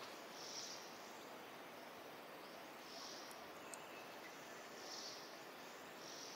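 Faint outdoor forest ambience: a steady low hiss with soft, high-pitched chirps from birds or insects recurring about every two seconds.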